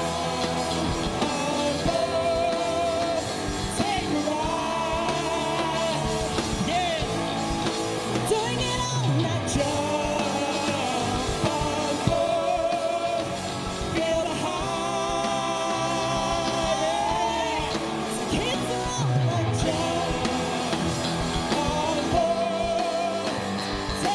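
Live rock band playing a song: a male lead vocal sung into a handheld microphone over drums and electric guitars.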